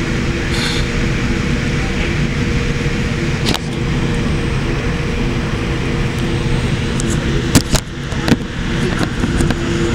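Boeing 787-8 cabin noise while taxiing: a steady low rumble from the engines at idle with a faint hum. A sharp knock comes about three and a half seconds in, and three more near the end.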